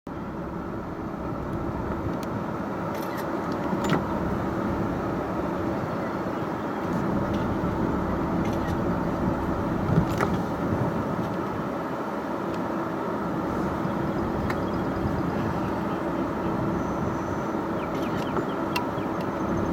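Car cabin noise: a steady engine and road rumble with a low hum held throughout, and a few light clicks and knocks.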